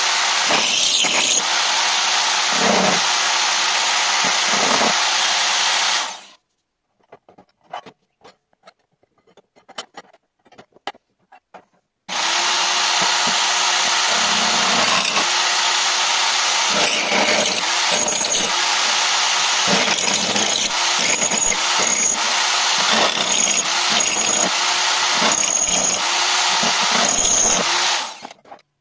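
Benchtop drill press running as it drills into a metal plate held in a vise. The motor stops about six seconds in, leaving only a few light clicks of handling. It starts again about twelve seconds in and runs until near the end, when it winds down.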